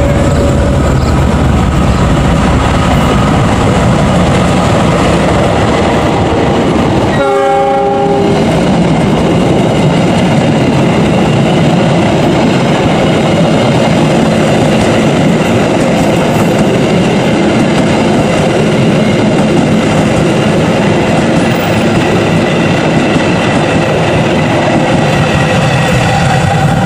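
The Argo Wilis passenger train, led by a diesel-electric locomotive, passing close by: a loud, steady rumble of engine and wheels on the rails. A horn sounds a single blast of about a second, several tones at once, a little over a quarter of the way in, and there is a short horn note right at the start.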